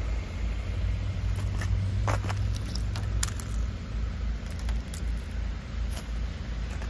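Ice crackling and snapping in short sharp clicks as fingers pick at a car door handle encased in ice. A steady low rumble runs underneath.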